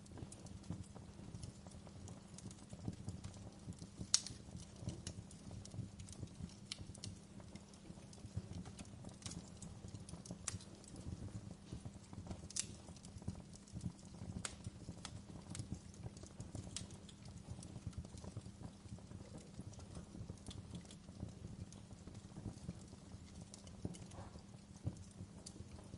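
Wood fire crackling steadily over a low rumble, with scattered sharper pops every second or two.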